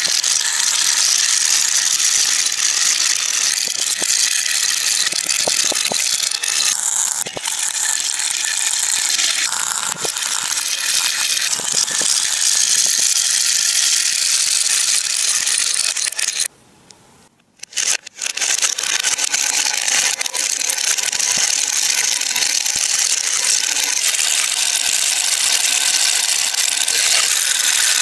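Many marbles rolling and clattering along a marble run track in a dense, continuous rattle, which breaks off briefly for about a second and a half just past the middle and then resumes.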